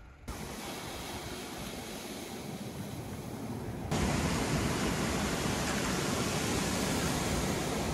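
A steady rushing hiss, which changes suddenly about four seconds in to louder surf breaking and washing up onto a beach of rounded cobblestones.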